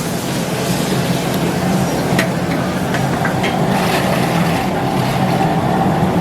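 Steady roar of a hawker-stall wok station stir-frying mee goreng, with a constant hum and a few sharp metal clicks of the spatula on the wok, about two to three and a half seconds in.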